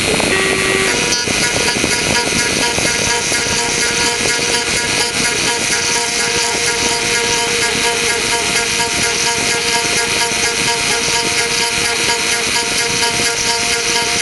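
Mini CNC router milling out a wood logo: the spindle runs with a steady whine and cutting hiss while the stepper-driven axes move. The pattern of tones shifts about a second in, then holds steady.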